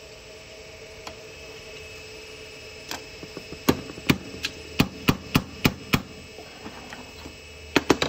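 Hammer tapping a small pin punch to drive a seized pin out of a PCC streetcar brush holder: a run of about eight sharp metal-on-metal blows at roughly three a second, then a quick pair of blows near the end. A steady hum runs underneath.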